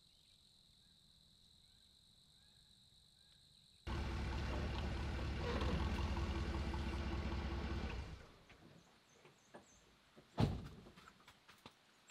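A steady high insect trill with a few faint bird chirps, then a Ford pickup truck's engine running for about four seconds before it shuts off and dies away. About two seconds later comes one loud thunk, like a vehicle door shutting, followed by a few light knocks.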